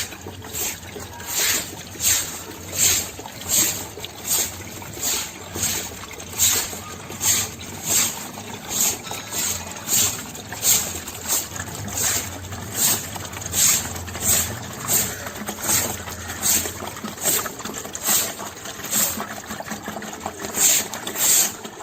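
Rhythmic hissing scraping strokes, about two a second and very regular, of a hand tool worked over a rough masonry surface.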